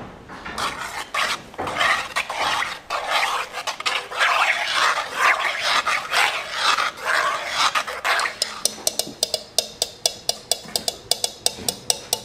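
Metal spoon stirring flour into a thick stew in a cast-iron Dutch oven, with wet scraping and sloshing. About two-thirds of the way through it changes to a quick, even run of clinks as the spoon knocks against the pot.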